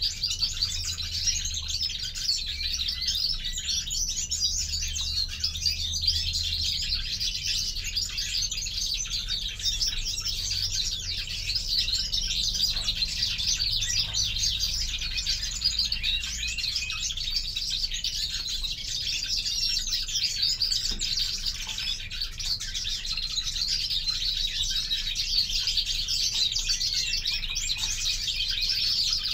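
Caged European greenfinches chirping and twittering, many calls overlapping in a continuous dense chatter.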